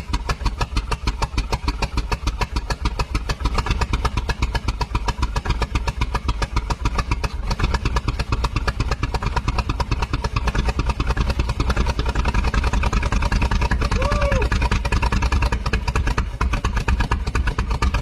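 Old car engine, just brought back to life, running on its own with fast, even firing pulses; the pace picks up slightly about four seconds in and again about eight seconds in.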